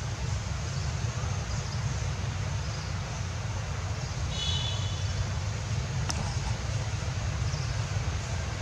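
Steady low outdoor rumble, with a brief high chirp about four and a half seconds in and a single sharp click a little after six seconds.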